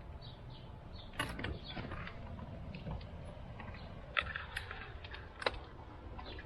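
A few scattered mechanical clicks and clanks over a low steady rumble.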